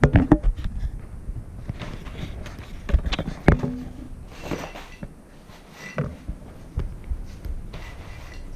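American Staffordshire terrier puppies playing: a run of scuffling, with thumps and knocks from paws and bodies on the floor, loudest in the first second and again around three seconds in.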